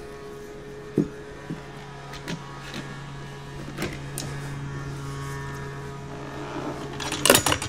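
Steel tire spoons clicking and scraping against a motorcycle wheel rim as the tire bead is pried up over it, with a few scattered clicks and a quick cluster of sharp metal clinks near the end. A steady low hum runs underneath.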